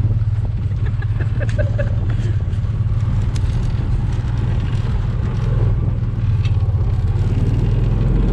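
Four-wheeler (ATV) engine running steadily at a low drone while the machine drives along, with some rattle and rumble of the ride over rough ground.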